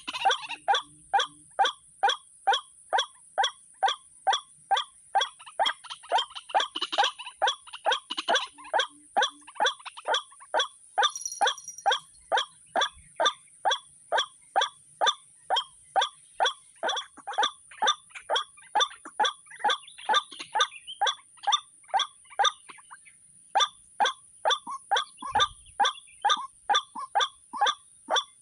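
White-breasted waterhen calling: a long run of short, evenly spaced 'kwak' notes at about three a second, the repeated call used to lure waterhens to a trap. The calling pauses for about a second near the end, then carries on.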